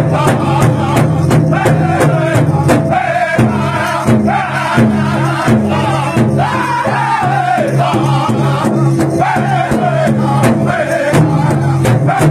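Powwow drum group singing: several voices in unison over a steady, even beat struck together on a big drum, the sung phrases falling in pitch.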